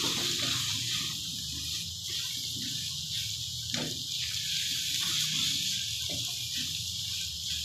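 Mash daal frying in oil in a steel pan, a steady sizzling hiss, while a wooden spoon stirs it, with a couple of short scrapes against the pan about four and six seconds in. The water has cooked off, so the oil is frying the lentils.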